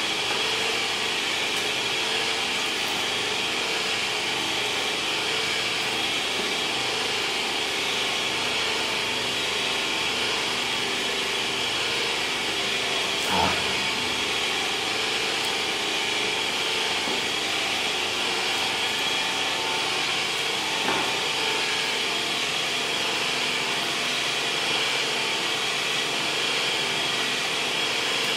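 A machine running steadily with a constant high whine over a lower hum, like an electric motor or fan; one short knock about halfway through.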